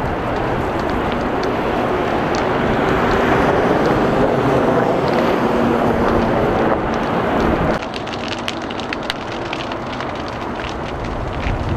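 Freeway traffic with big-rig trucks rolling past, a steady rumble. About eight seconds in it cuts abruptly to a quieter hiss with many sharp crackles: burning brush and a fire hose stream being sprayed onto it.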